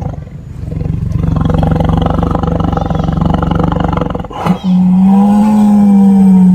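Two long, low moos from a bovine. The first is held about four seconds; the second starts after a short break and is slightly higher and louder.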